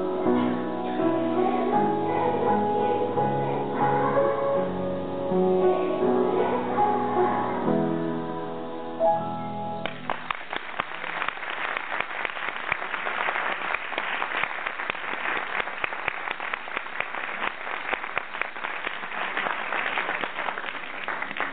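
Children's choir singing held notes to the end of a song; about ten seconds in the singing stops and audience applause starts and keeps going.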